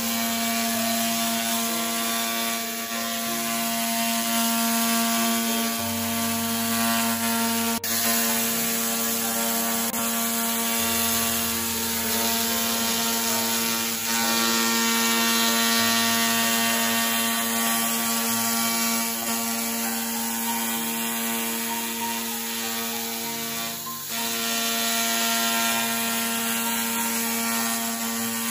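Handheld fiber laser cleaning head running in cleaning mode, ablating rust off a steel plate: a steady buzzing hum made of many fixed tones with a high hiss, dipping briefly near the end.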